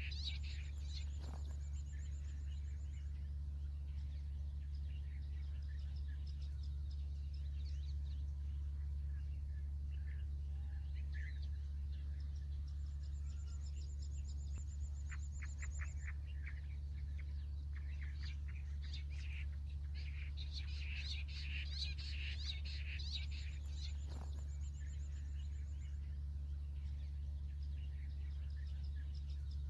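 Birds calling and chirping in dry scrub, with a high rapid trill that recurs three times about ten seconds apart, over a steady low hum.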